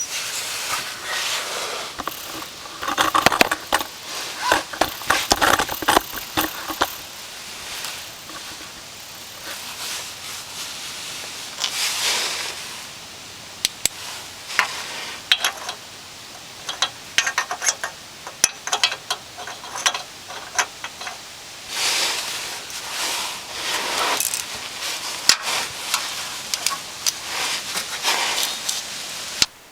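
Hand-tool work on driveshaft bolts: a wrench and bolts clinking and clicking against metal again and again, with bouts of rustling and scraping in between.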